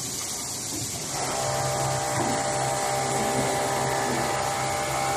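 Automated industrial sewing station with a Pegasus sewing head starting up about a second in, then running as an even, steady whine over a low hum.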